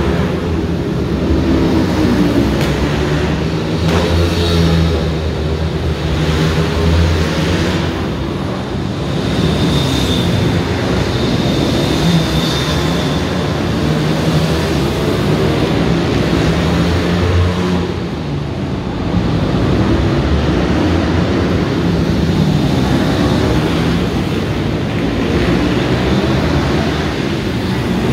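Several small single-cylinder pit bike engines revving up and down as the bikes lap a track inside a large hall.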